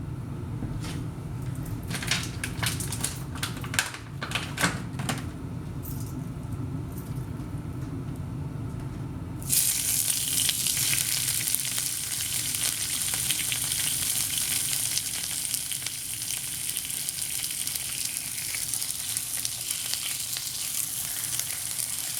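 Bacon rashers frying in a hot pan: a few clicks and knocks of handling at first, then about ten seconds in the sizzle starts suddenly as the bacon goes in, and keeps up as a steady hiss.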